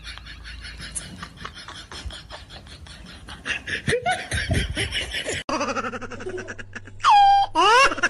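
People laughing heartily for about five seconds, then, after a sudden break, a ginger cat meowing loudly: a long call that falls in pitch, followed by shorter rising calls near the end.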